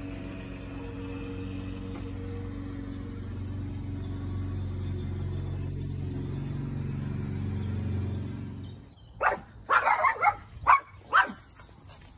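A small dog barks sharply, a quick run of about six barks, about nine seconds in. Before the barks there is a steady low hum.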